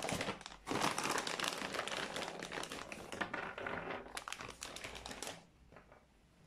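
A bag being handled and crinkling close to the microphone, in a dense run of crackles with a short break about half a second in, stopping about five seconds in.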